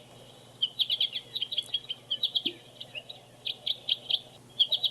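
A small songbird singing: quick clusters of short, high chirping notes, repeated with brief pauses between them.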